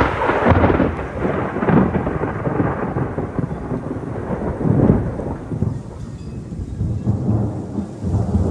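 Thunder rumbling after a lightning strike, swelling and fading several times, with rain falling.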